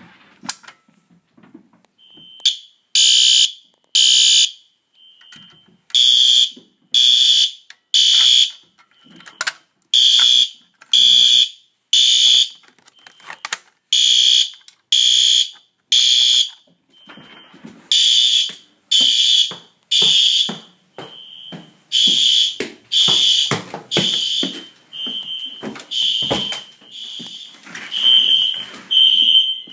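Fire alarm system going into alarm about two seconds in. The horn gives loud blasts about once a second in a temporal-three pattern of three blasts then a pause, with a steady high beep sounding through the pauses.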